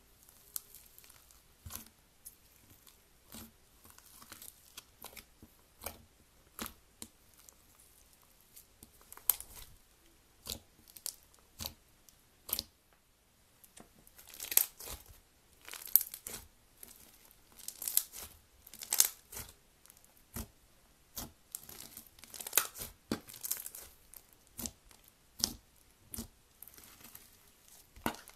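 Thick slime being pressed, squeezed and pulled by hand, giving irregular sharp crackles and pops. They are sparse at first and come thicker and louder from about halfway.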